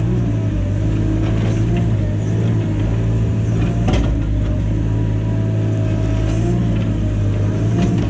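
Caterpillar mini excavator's diesel engine running steadily under load, with a slightly wavering hydraulic whine, while the bucket digs out a tree stump. Scattered knocks and scrapes of the bucket in dirt and roots, the sharpest about four seconds in.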